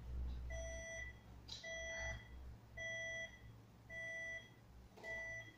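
Electronic beeping: five short, steady beeps at an even pace, a little more than one a second.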